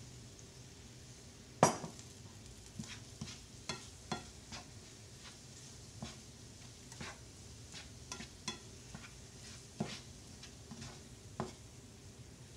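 A black slotted nylon spoon stirring and scraping a thick fish-cake mixture in a nonstick skillet, with irregular clacks against the pan; the loudest comes about a second and a half in. Beneath it, a faint sizzle of the mixture cooking on the heated burner.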